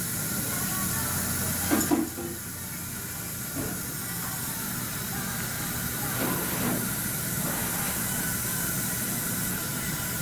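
Steady hiss of dental suction running during oral surgery, with a few brief soft noises about two, three and a half and six and a half seconds in.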